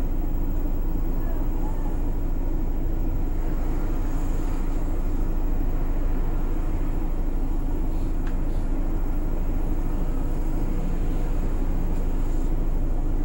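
City bus engine running with a steady low drone, heard from inside the bus.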